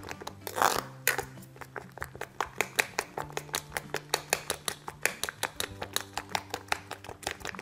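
Metal spoon clinking against a stainless steel bowl while beating a raw egg mixture with vegetables, a fast, even run of light clicks, about five a second.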